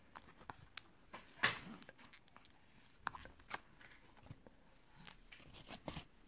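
Plastic blister packaging and paper backing of a microSD card being handled and pulled at by hand: scattered crinkles and clicks, the loudest about a second and a half in.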